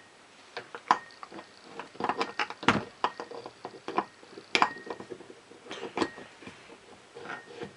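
Small steel parts of a Lister D engine's governor clinking and knocking irregularly as they are handled and fitted, a few of the knocks leaving a short metallic ring.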